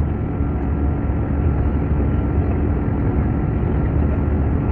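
Steady vehicle rumble heard from inside the vehicle: a constant low engine and running drone with a faint steady hum over it.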